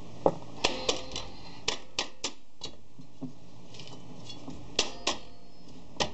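Rear drum-brake shoes and spring hardware on a 1997 Chevy Astro van clicking and clinking as they are handled and seated against the backing plate. About a dozen sharp clicks come, most in quick succession in the first few seconds, and a few ring briefly.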